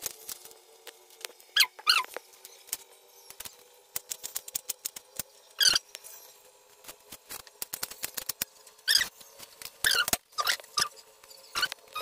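Small knife peeling and trimming garlic cloves on a plastic cutting board: scattered clicks and taps with several short squeaks, over a faint steady hum.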